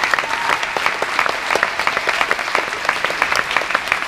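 Large audience applauding in a big sports hall, a dense, steady clatter of many hands clapping at once.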